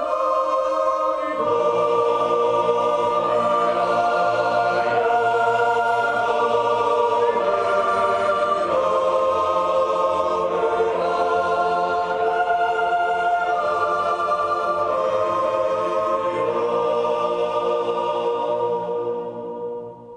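Slow choral music: voices holding long sustained chords that change every few seconds, fading out near the end.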